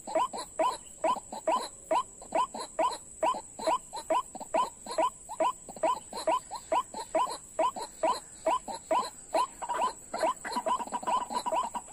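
White-breasted waterhen (ruak-ruak) calling: a fast, unbroken series of short croaking notes, about three a second.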